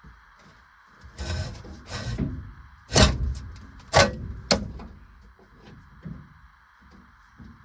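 A long, stiff hydraulic hose being worked out of a backhoe by hand: rubbing and scraping, then three sharp knocks as the hose and its fittings hit the machine, the loudest in the middle.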